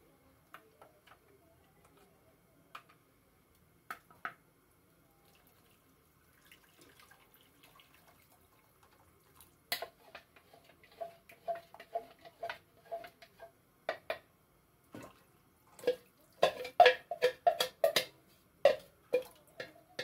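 Milky liquid poured from a plastic measuring jug into a pot, faint at first. From about halfway there is a run of quick knocks and scrapes against the jug and pot, loudest near the end.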